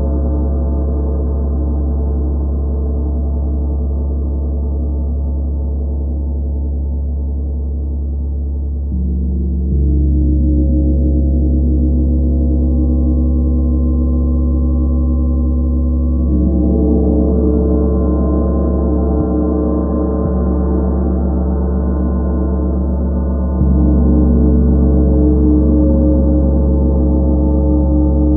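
A 32-inch Tree of Life gong rung continuously with soft mallets: a deep, long-sustaining drone with many overtones. It swells a little louder several times as fresh soft strokes are added, with no sharp hits.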